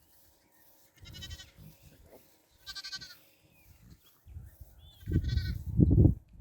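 Newborn Icelandic lamb bleating three times, short high-pitched calls about a second and a half apart, calling for its ewe. A low rumbling noise builds under the last call and is loudest near the end.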